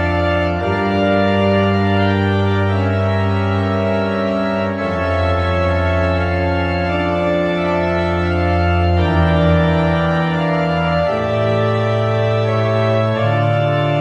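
Background music of slow, sustained chords that change every few seconds.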